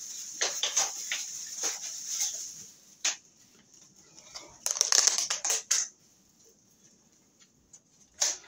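Kitchen handling noises next to the stove: scattered clicks and light crackle, a single knock about three seconds in, and a short burst of clatter around five seconds.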